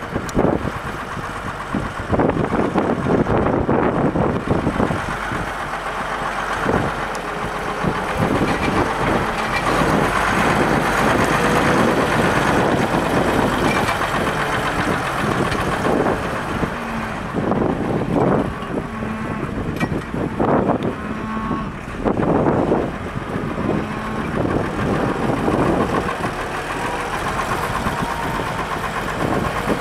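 Deutz-Allis 7120 tractor's air-cooled Deutz diesel engine running, its revs rising and falling as the tractor drives and works the front loader.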